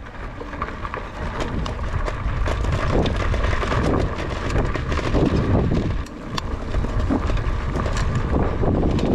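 Wind buffeting the microphone over the crunch and rattle of a fat-tyre e-bike riding across gravel and loose dirt, with many small clicks and knocks from the tyres and bike.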